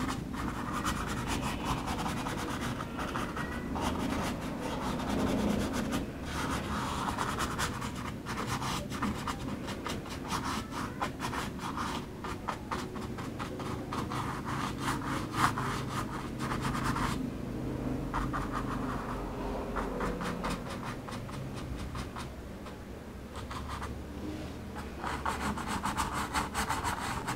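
A stiff bristle flat brush scrubbing and dabbing acrylic paint onto canvas in quick runs of short strokes, blending soft clouds into the sky. The strokes ease off for several seconds past the middle and pick up again near the end, over a faint steady low hum.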